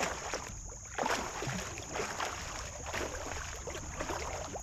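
Kayak paddle strokes splashing and dripping in the water, about one a second, over a steady high-pitched hum.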